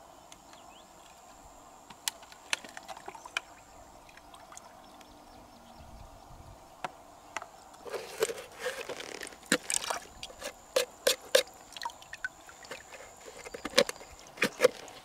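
A knife blade clicking and scraping against the shell of a large freshwater pearl mussel as it is pried open, a quick run of sharp clicks through the second half. Faint water trickling and lapping underneath, with only a few scattered clicks before that.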